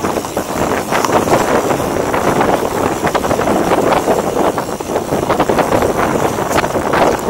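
Wind buffeting the microphone of a chest-mounted Yi 4K+ action camera on a moving mountain bike, with frequent short clicks and rattles from the bike and trail.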